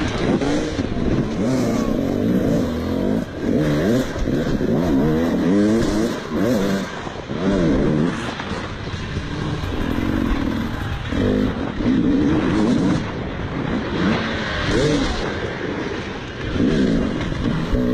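Dirt bike engine revving hard and easing off over and over, its pitch rising and falling every second or two with the throttle, heard close up from the rider's helmet.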